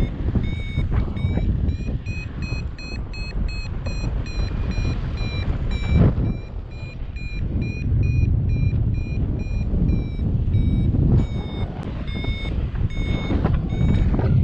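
Paraglider variometer beeping in a climb: a quick train of short, high beeps whose pitch rises a little in the first couple of seconds, signalling lift in a thermal. Wind rushes on the microphone underneath, with gusts.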